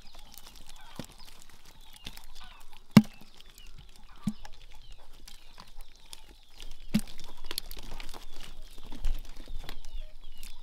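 Small eel-like fish being handled and dropped into a plastic bucket on a bamboo floor: scattered knocks and clicks, the sharpest about three seconds in and others near four and seven seconds. Chickens are clucking in the background.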